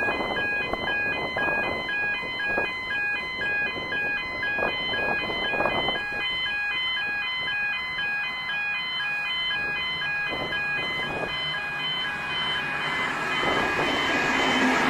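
An electronic warning bell, as at a level crossing, ringing in a steady pulse about twice a second, with gusts of wind on the microphone. In the last few seconds the rising rumble of a V/Line VLocity diesel railcar set approaching at speed builds up and drowns it out.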